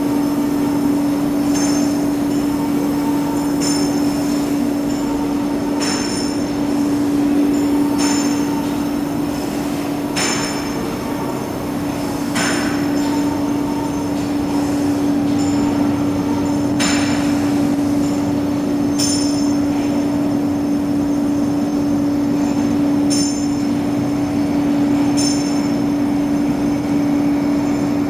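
Industrial machinery running: a steady hum, with a sharp metallic clank that rings out about every two seconds.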